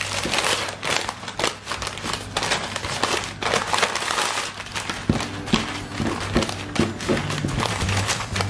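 Baking paper crinkling and rustling as hands roll it tightly around a soft tuna-loaf mixture and press it into a log.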